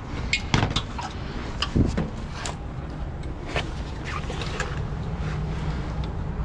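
Heavy recovery truck's diesel engine idling steadily, with a series of sharp clicks and knocks in the first few seconds.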